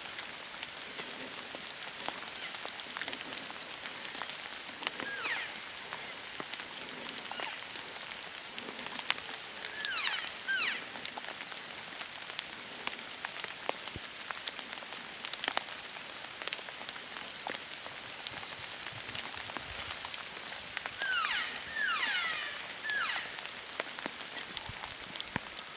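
Steady crackling patter of many small ticks, with a few quick runs of short, falling bird chirps.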